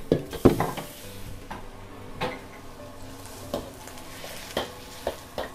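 Metal spatula stirring noodles in a steel wok over a gas wok burner: sizzling, with a burst of hiss about half a second in, then sharp clanks of the spatula against the wok every second or so.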